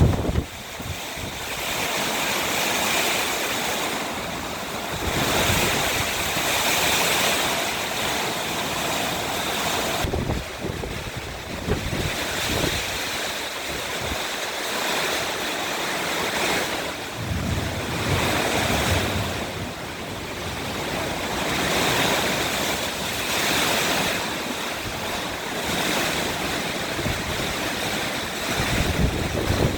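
Storm wind gusting in surges that swell and fade every few seconds, buffeting the microphone with low rumbles.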